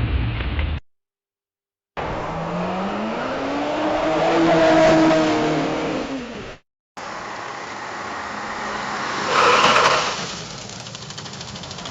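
Separate car sound effects. First a car engine rises in pitch as it accelerates, holds, then drops away and cuts off. After a short silence comes steady road noise, with a brief loud tire screech about nine and a half seconds in.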